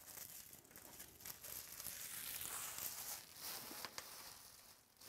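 Crinkling and rustling of foil trading-card pack wrappers being handled, with small crackles and clicks, loudest around the middle and fading near the end.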